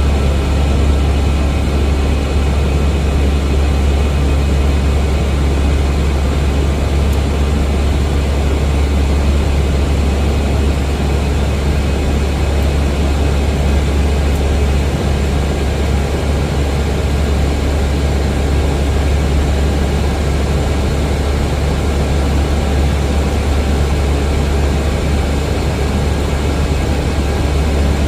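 Steady low rumble of an Airbus A320 heard from inside the aircraft: engine and airflow noise, unchanging throughout.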